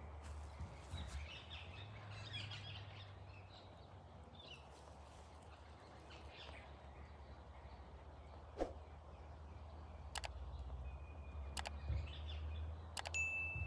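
Faint garden ambience: birds chirping on and off, with a held whistled note near the end, over a low steady rumble. A few sharp clicks occur in the second half.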